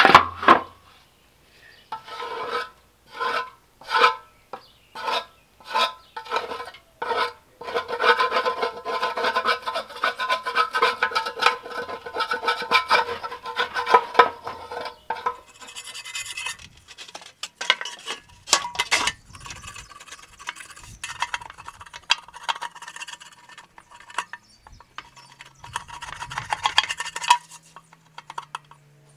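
Scraping on the pony motor's fuel tank, clearing caked oily gunk off the metal. Separate rasping strokes at first, then quick, almost continuous scraping from about eight seconds in.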